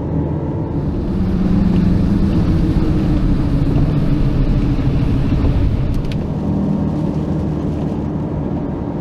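Campervan cruising on the motorway, heard from inside the cab: a steady engine drone and road rumble, with tyre and wind hiss swelling from about a second in and easing after about six seconds. A brief click is heard near six seconds.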